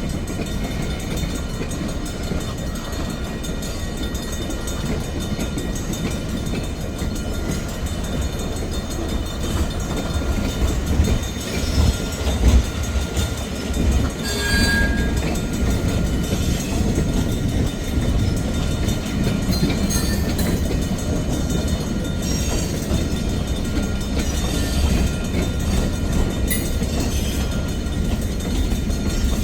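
Freight train rolling slowly on the rails: a steady low rumble of wheels and cars, with a few heavier knocks and one brief high squeal about halfway through.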